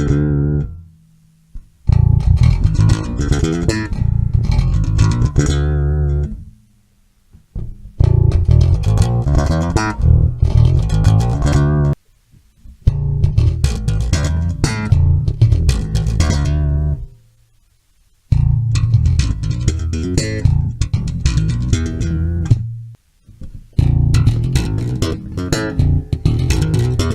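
Electric bass guitar played through an Artec SE-3 bass preamp: plucked bass lines in about five short phrases, each a few seconds long, broken by brief silences.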